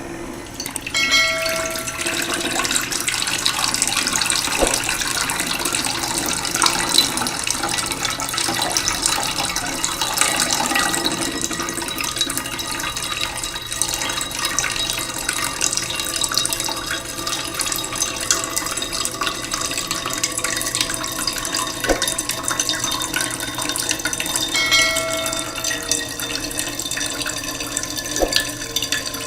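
Waterfall: a steady rush of falling water. A short pitched tone sounds twice over it, about a second in and again near the end.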